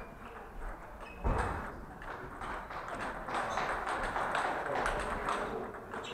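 Table tennis balls clicking on tables and bats, many small ticks from several tables at once in a large hall, with a dull thud about a second in.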